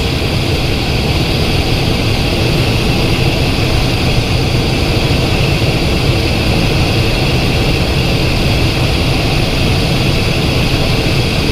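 Steady cockpit noise of a Cessna Citation XLS, its twin turbofan engines running with a low drone and a constant whine.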